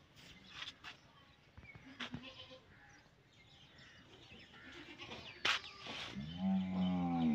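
One drawn-out animal call, about a second long, near the end. Before it there is faint background with a couple of sharp clicks.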